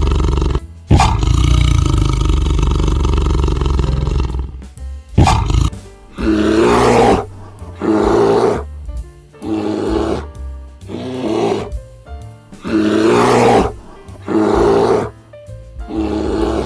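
Lion roaring: a long loud call, then a series of short grunting calls about one a second, with background music.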